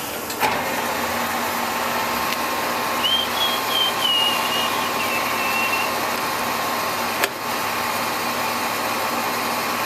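Clausing-Colchester lathe running steadily while its feed controls are worked, with two short clunks, one near the start and one about 7 seconds in. A brief wavering high tone is heard from about 3 to 6 seconds in.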